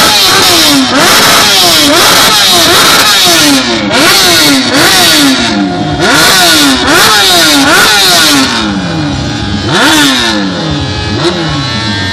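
Stationary motorcycle engine revved hard again and again: about a dozen loud throttle blips, each snapping up in pitch and sliding back toward idle. The blips thin out near the end, with longer stretches at idle between them.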